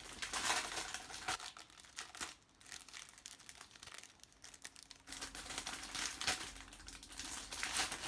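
Plastic packaging crinkling and rustling as it is handled, in two busy spells with quieter handling between.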